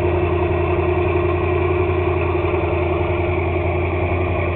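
Boat engine idling steadily, a constant even run with no change in speed.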